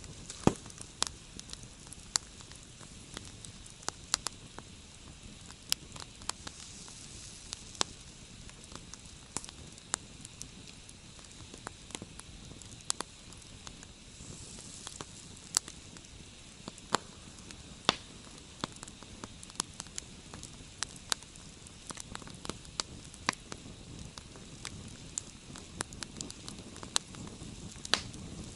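Wood campfire burning with a steady low hiss and frequent irregular crackles and sharp pops.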